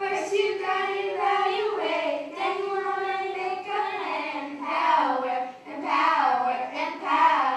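Children's voices singing a melody, with long held notes in the first half and shorter, changing notes after.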